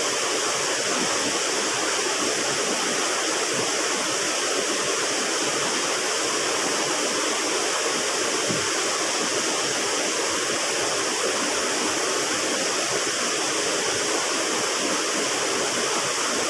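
River water rushing and splashing steadily, a constant hiss-like flow.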